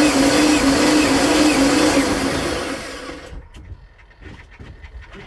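Starter motor cranking the Volvo Penta 5.7 V8 with a compression gauge fitted, a steady whine whose pitch dips and recovers in a regular rhythm as each cylinder comes up on compression. It stops about three seconds in. The gauge reads almost 200 on this cylinder, a sign of good compression.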